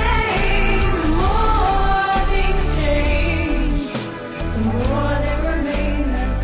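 Music: a gliding melody over a steady bass and a regular beat.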